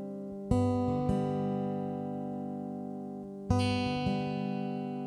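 Background music: acoustic guitar chords strummed and left to ring, a new chord struck about half a second in and another about three seconds later, each slowly fading.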